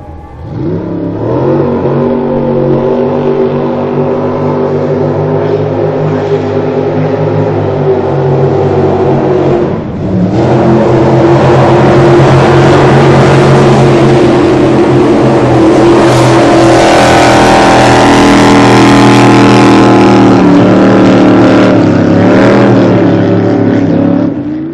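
Racing jet boat engines running hard at speed, with a steady engine note. After a cut about ten seconds in, the sound is louder, and it cuts off abruptly at the end.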